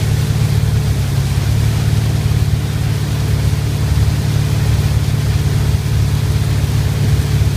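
Motorboat engine running steadily at speed with a constant low hum, over the rush of water spray and wind.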